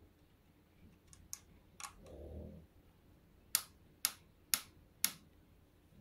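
Allen key working a focuser clamp screw by hand, with light metal clicks as the key is turned and reseated: a few faint clicks early, a soft handling rub about two seconds in, then four sharp clicks about two a second.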